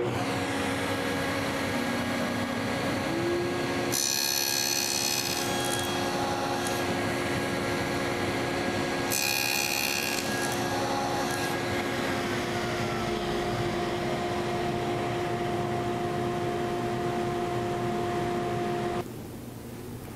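Table saw with a stacked dado blade starting up and running steadily. It cuts a trial tenon cheek in a wooden offcut in two passes, about 4 s and 9 s in, each a short spell of loud hiss over the motor's hum. The running sound drops away near the end.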